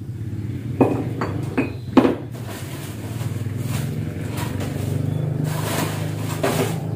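A metal wok and utensils clink sharply four times, then a steady hiss of oil frying builds and grows louder near the end. A low steady hum runs underneath.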